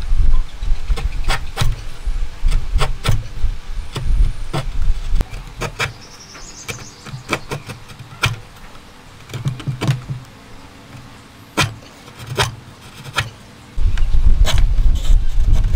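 Steel chisel paring shavings from hardwood end grain by hand pressure, a run of sharp crisp cuts at an uneven pace. Under the cuts is a low rumble at the start and again near the end.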